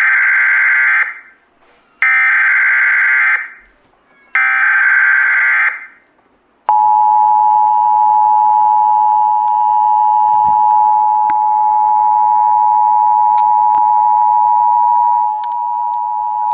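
Emergency Alert System broadcast tones opening a relayed Amber Alert cancellation. First come three one-and-a-half-second bursts of warbling SAME header data, a second apart. Then the two-tone EAS attention signal (853 and 960 Hz together) sounds steady for about nine seconds and drops in level near the end.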